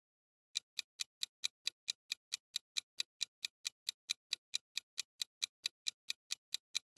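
Countdown-timer ticking sound effect: sharp, clock-like ticks at an even pace of about four to five a second, starting about half a second in, marking the time running out.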